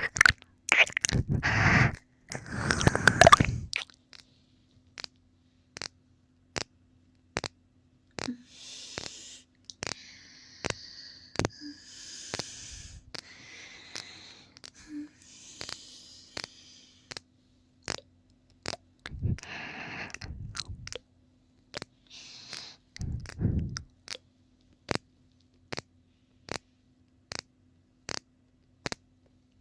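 Close-miked ASMR mouth sounds: wet licking and mouth noises in the first few seconds, then soft breathy sounds and two more short wet bursts later on. A faint sharp click repeats about three times every two seconds throughout, over a low steady hum.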